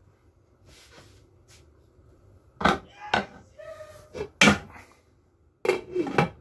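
A metal cooking pot and its glass lid clanking as the lid is set on: a handful of sharp knocks with brief metallic ringing, the loudest about halfway, then a longer rattle near the end as the lid settles on the rim.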